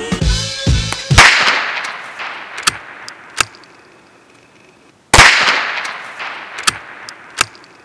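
Two loud rifle shots, a little over a second in and again about five seconds in, each with a long echoing tail that dies away over a few seconds. A few sharp metallic clicks come between and after them.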